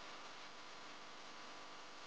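Faint steady hiss with a low, even hum and no distinct sound events.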